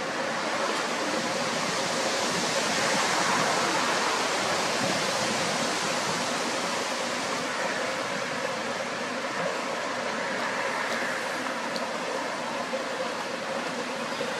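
Strong wind rushing over the microphone as a steady, even roar of noise.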